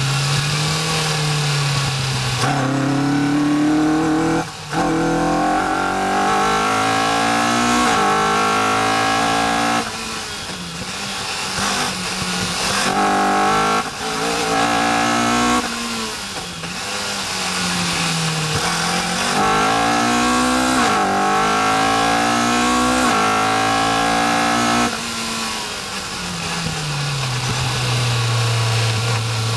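Caterham R400 engine heard from the open cockpit at racing speed. It revs up hard several times, each rise in pitch cut by a quick upshift. Between the climbs the note slides down as the car lifts off and shifts down for corners, and it settles to a steady low note near the end, with wind rush throughout.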